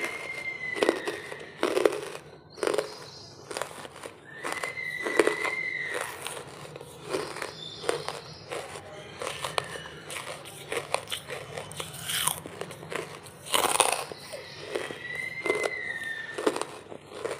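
Lumps of charcoal being bitten and chewed: sharp, irregular crunches about one or two a second, with gritty chewing between them.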